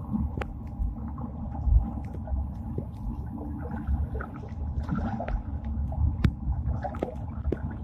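Swimming-pool water heard with the microphone submerged: a dull, steady rumble with scattered small clicks and ticks from bubbles and water movement.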